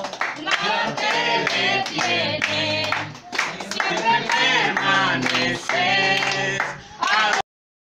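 Congregation singing a worship song with music and rhythmic hand clapping; it cuts off suddenly near the end.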